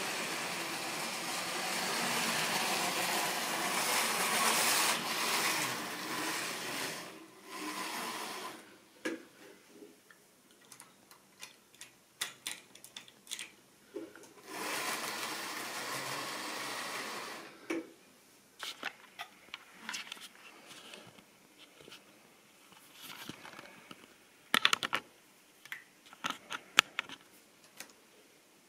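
Model railway trains running on the layout's track: a steady rumble of motor and wheels that dies away about eight seconds in, a second shorter run past the middle, and between and after them scattered sharp clicks of wheels over rail joints and points.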